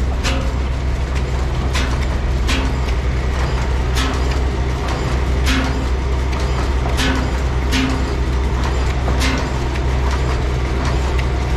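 Large horizontal single-cylinder stationary engine with a heavy spoked flywheel running slowly: a sharp exhaust beat every second or so, not quite evenly spaced, over a steady low hum.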